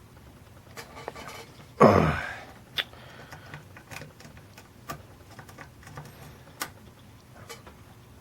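Faint scattered clicks and ticks of a hook pick working the pin stacks of a Yale cabinet lock under tension, while probing a pin that gives counter-rotation in a false set. One louder brief sound about two seconds in.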